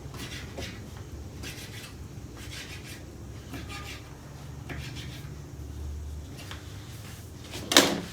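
Repeated light scraping and rubbing of small toy kitchenware, with a single sharp knock near the end.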